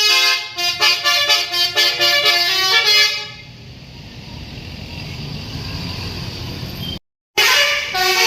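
A bus's basuri musical horn plays a quick melody of short stepping notes for about three seconds, then stops. Traffic rumble builds after it, and the horn melody starts up again near the end after a brief dropout.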